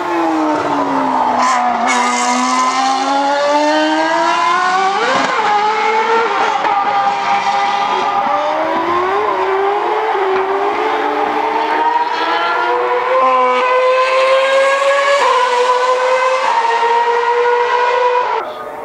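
2013 Formula 1 car's 2.4-litre V8 engine at high revs: the note falls as the car slows for a corner, then climbs again, dropping sharply at each of several upshifts.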